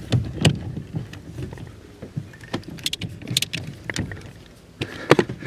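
Irregular clicks and knocks of hand work at a car's steering-shaft universal joint under the steering column, as tools and metal parts are handled to work the joint loose.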